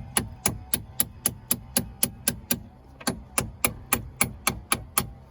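Hammer blows driving a bolt out of the front suspension's upper control arm mount, struck at a steady pace of about three to four a second with a brief pause partway through.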